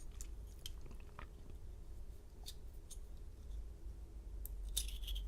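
Faint scattered clicks and light metallic scrapes of small lock parts and tools being handled while a Schlage lock cylinder is disassembled, with a short cluster of scraping clicks near the end.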